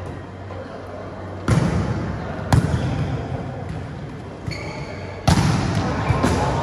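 Volleyball being struck during a rally, hits echoing in a large hall: four sharp hits, at about one and a half, two and a half, five and six seconds in, the one near five seconds the loudest. A brief high squeak comes just before that loudest hit.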